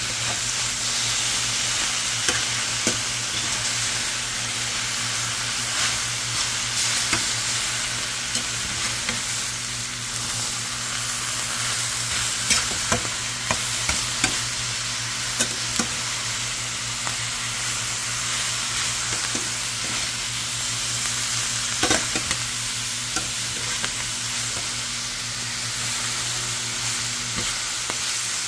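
Vegetables sizzling as they are stir-fried in a metal pan, with the utensil clicking and scraping against the pan now and then as they are stirred.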